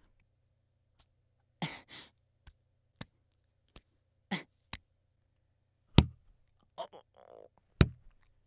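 A man punching himself, with two sharp, heavy blows about six and eight seconds in, amid short breathy exhales and a few small clicks.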